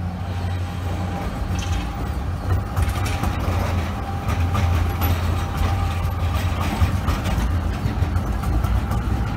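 Zurich city tram rolling past close by through the track curves. It gives a steady low hum, with scattered clicks and knocks of the wheels over the rails, getting a little louder as it nears.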